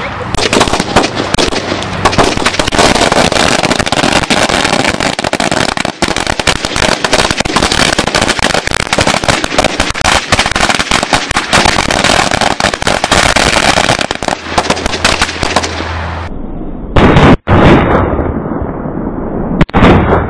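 A hanging firecracker celebration roll going off in a fast, unbroken string of bangs for about sixteen seconds. After a short break come two much louder single blasts near the end, the head bomb at the top of the roll exploding.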